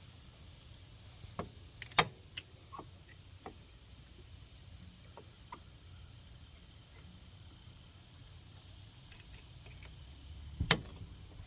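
Scattered sharp clicks and knocks from hand-tool work on the ATV's front axle, the loudest about two seconds in and another near the end, over a low steady hum.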